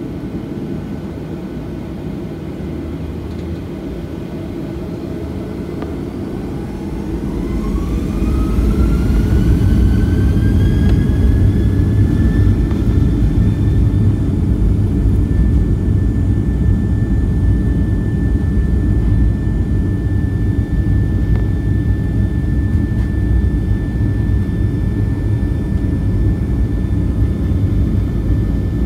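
Boeing 737-800's CFM56-7B turbofan engines spooling up to takeoff thrust, heard from inside the cabin by the wing. About six seconds in, a whine starts rising in pitch and the sound grows louder, then from about thirteen seconds it holds as a steady high whine over a deep rumble.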